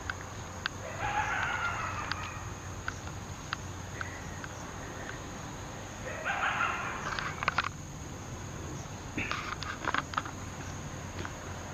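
Three harsh, raspy animal-like calls, each about a second long, about a second in, near the middle and near the end, over a steady high insect drone with scattered sharp clicks.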